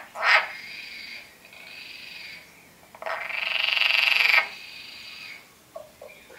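European water frog croaking with both cheek vocal sacs blown up: a loud call at the start, then a long rattling croak about three seconds in that swells over a second and a half. Quieter croaking runs come before and after it.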